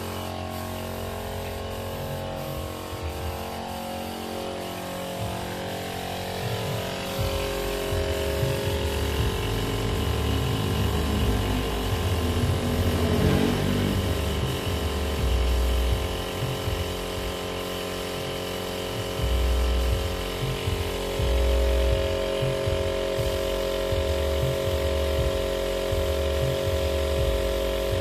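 A machine motor running steadily with a hum, joined by uneven low rumbling from about seven seconds in.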